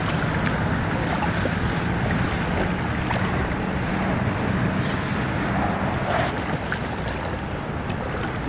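Steady wind buffeting the microphone over water lapping in open shallow water.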